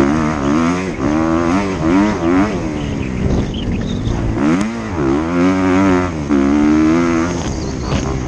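Kawasaki KX250F dirt bike's four-stroke single-cylinder engine revving up and falling back over and over as the throttle is worked. There is a sharp drop in revs about halfway through, then it climbs again.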